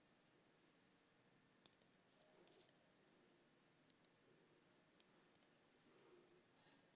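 Near silence: faint room tone with a few quiet clicks, a quick run of three about a second and a half in, then scattered single and paired clicks.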